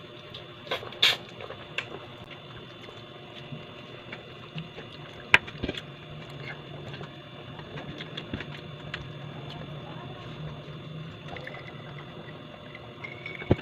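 A person eating: chewing and small mouth sounds with scattered clicks and taps, and one sharp click about five seconds in, over a steady low hum.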